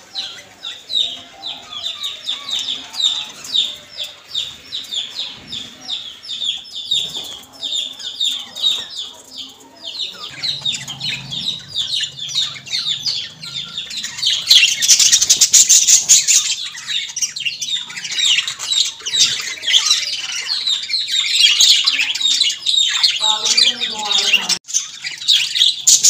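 A flock of budgerigars chattering: a dense run of rapid, high chirps and warbles that grows louder and busier about halfway through.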